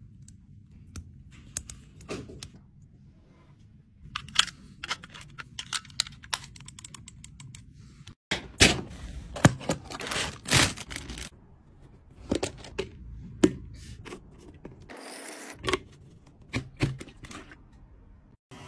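Close-up handling of packaging and products: cardboard boxes sliding open and flaps lifting, with many sharp clicks, taps and scrapes of plastic items being picked up and set down. The loudest cluster of taps and scrapes comes in the middle, as a second box is opened after a short break.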